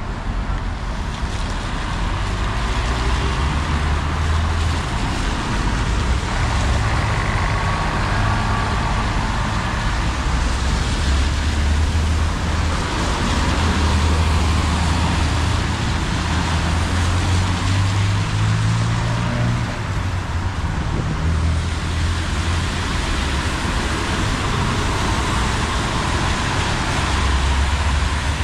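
Road traffic on a rain-wet street: buses and cars passing with a low engine rumble and tyres hissing on the wet road. A double-decker coach passes close about halfway through.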